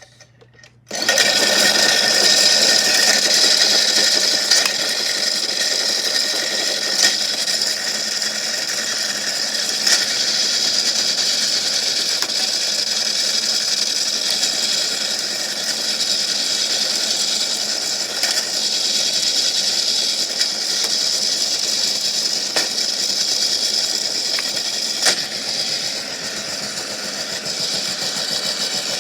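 A small electric motor switches on about a second in and runs steadily with a high whir, with a few sharp clicks over it.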